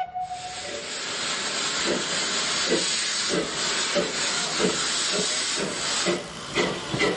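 Steam locomotive getting under way: a whistle stops just under a second in, then a steady hiss of steam with exhaust chuffs that come steadily quicker.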